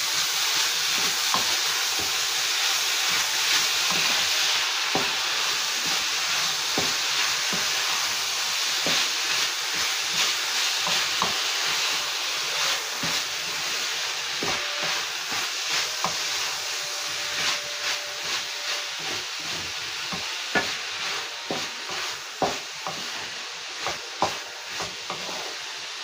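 Shredded shark meat and onion masala sizzling in a non-stick kadai while a wooden spatula stirs it, scraping and tapping against the pan. The sizzle slowly fades, and the spatula taps come more often toward the end.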